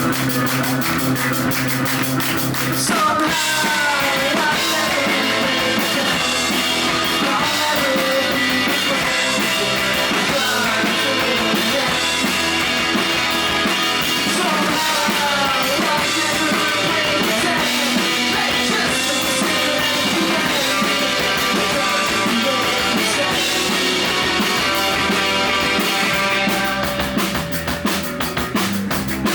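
Rock band playing live, driven by a drum kit. From about three seconds in, a high melody line slides up and down over the band. Near the end the sound thins and the drums come forward.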